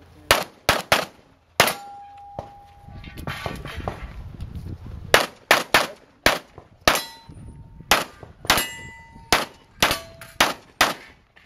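Handgun fired in quick strings by a competitor shooting a stage: a few fast shots in the first second or two, then a long run of rapid shots from about five seconds on. Some hits are followed by a short metallic ring, steel targets clanging.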